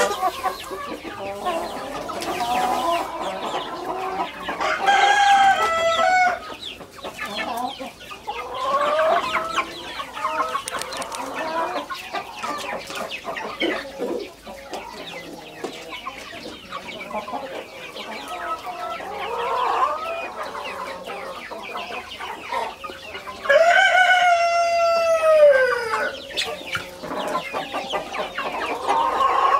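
Chickens clucking throughout, with a rooster crowing twice: a short crow about five seconds in and a longer crow, falling in pitch at its end, near the end.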